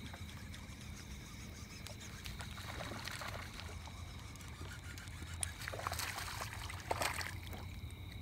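A small bass being reeled in on a baitcasting rod: faint reel winding and light clicks over a steady low rumble, with short splashy bursts of water around the middle and twice near the end as the fish is brought to the boat.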